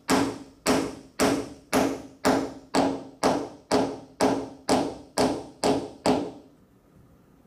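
A steel-headed Japanese hammer (genno) tapping gently on the top end of a wooden board, about thirteen even knocks at roughly two a second, driving the glued board down into the groove of its wooden base. The knocks stop about six seconds in.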